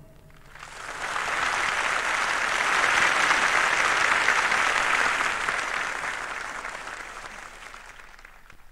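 Concert audience applauding. It swells up about half a second in, then gradually fades away near the end.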